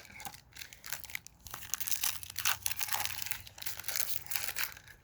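Foil wrapper of an NFL trading card pack crinkling and tearing as it is handled and opened by hand, in a dense, irregular crackle that is busiest in the middle few seconds.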